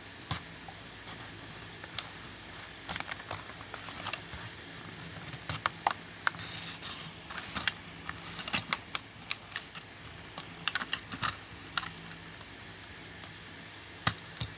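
Hot Wheels blister card being opened by hand: the plastic bubble and cardboard card give irregular clicks and crackles, in short clusters with pauses between.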